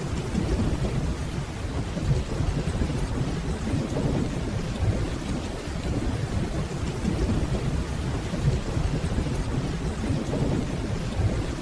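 Steady rainfall over a continuous low rumble of distant thunder, with no distinct claps or pauses.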